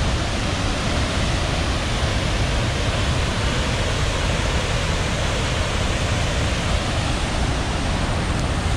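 Waterfall swollen by days of heavy rain, water pouring down with a loud, steady rush.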